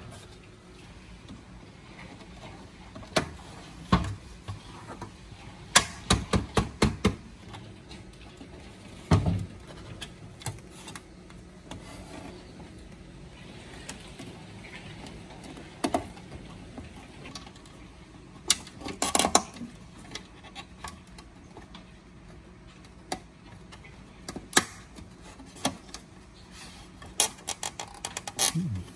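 Hand tools and small parts being handled during work on an old TV: scattered clicks and knocks, with a quick run of about eight clicks around six seconds in and small clusters of clicks near the middle and the end.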